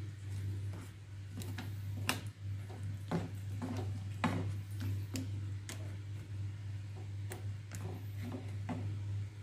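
Frying pan of crab and vegetables simmering in coconut milk, with irregular light clicks and ticks over a steady low hum.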